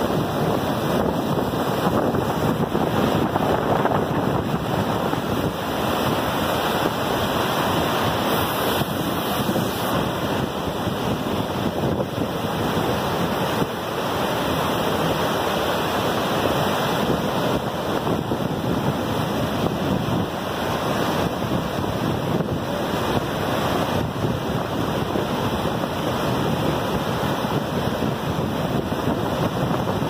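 Steady roar of the flood-swollen Iguaçu River, muddy water churning through rapids and pouring over the falls just below.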